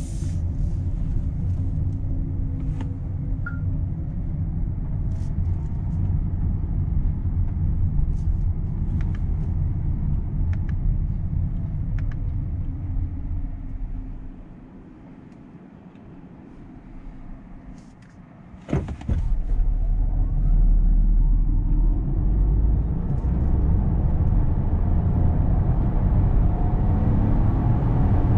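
Renault Rafale E-Tech Hybrid 200 driving over rough ground, heard from inside the cabin as a steady low rumble. About halfway through it stops and goes quiet. After a click the car sets off at full acceleration from standstill, with a louder low rumble and a faint rising pitch as it speeds up.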